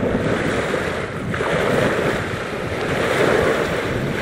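Choppy waves washing onto a pebble shore, with wind buffeting the microphone.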